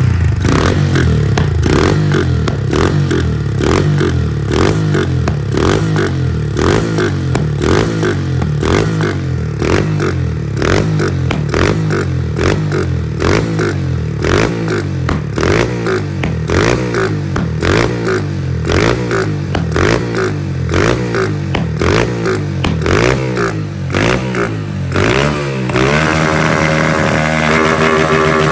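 150 cc single-cylinder motorcycle engine breathing through an aftermarket MK Race muffler, revved over and over in quick throttle blips with sharp pops between them.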